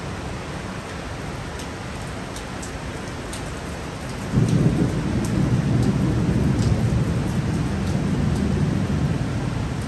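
Heavy rain falls steadily, with scattered drips ticking close by. About four seconds in, a loud roll of thunder breaks in suddenly and rumbles on, slowly easing.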